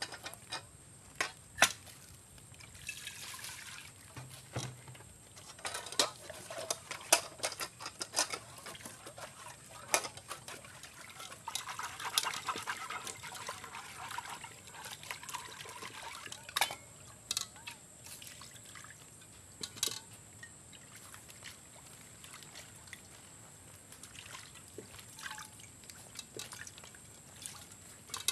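Water trickling and pouring in a metal cooking pot, with a longer slosh about twelve seconds in. Sharp clinks of the pots and their lids being handled sound now and then throughout.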